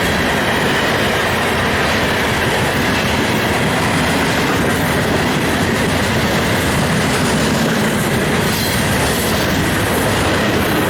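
Freight cars of a long train rolling past close by, with continuous wheel and rail noise and a steady high wheel squeal.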